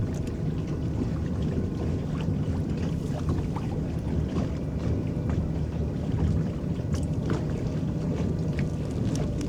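Water churning around the paddles of a small electric boat under way: a steady low rumble with small splashes and drips scattered through it.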